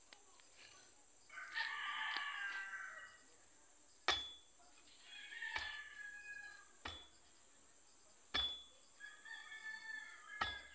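A rooster crowing three times, each crow a long call of a second or two. Sharp clicks fall between the crows, the loudest about four seconds in.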